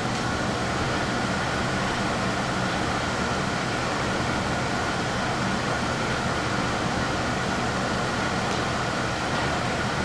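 Steady whirring hum of running machinery, with a faint steady high tone over it.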